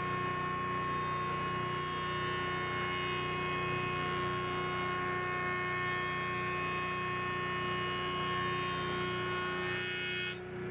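Grizzly G0858 8-inch jointer running with a steady hum and whine while a board is face-jointed over its helical cutterhead. Near the end the higher whine fades as the board clears the head, with no loud chunk of snipe: a sign that the outfeed table is now set right.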